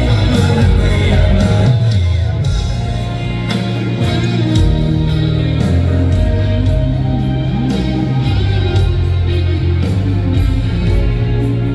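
A rock band playing live, with a voice singing over bass, guitar and drums.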